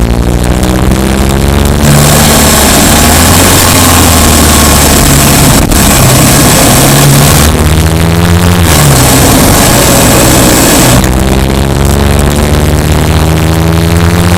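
Subaru Impreza Sport's flat-four boxer engine pulling under load while driving, its pitch climbing slowly at the start, again about halfway through and from about three-quarters of the way on. A steady rushing noise fills the stretches in between.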